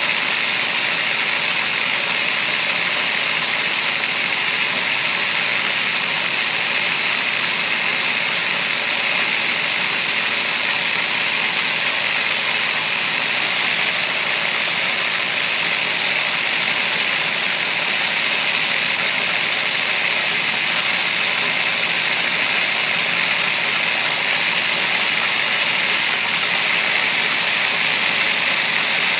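Atlas lathe running with an end mill in its milling attachment cutting a slot in steel strap iron: a steady, even mechanical noise that carries on without a break.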